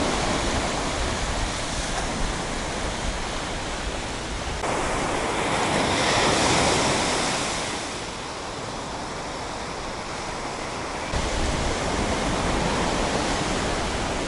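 Sea surf breaking and washing up a sandy beach, with wind on the microphone. The sound changes abruptly twice as the shots change, and one wave swells louder a little before the middle.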